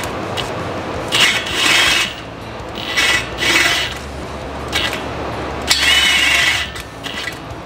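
Cordless drill with a 15/32-inch bit drilling out the valve-stem hole in a dirt-bike wheel rim, enlarging it for a larger valve stem. The bit grinds through the metal in three loud spells of about a second each, with the drill running more quietly between them.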